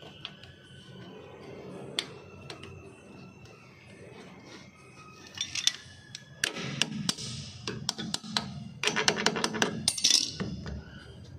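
Metallic clinks and clattering of hand tools and drum-brake parts being handled. The sound comes as a single click, then dense bursts of rattling through the second half. Faint music plays steadily underneath.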